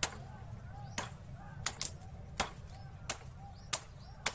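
Bush knife (bolo) chopping a cassava stem into cuttings for planting: about eight sharp hacks at uneven intervals.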